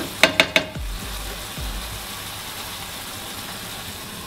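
A wooden spatula knocked three times in quick succession on the rim of a frying pan, the pan ringing briefly with each knock. After that, steady sizzling of sauerkraut stewing in the pan with broth.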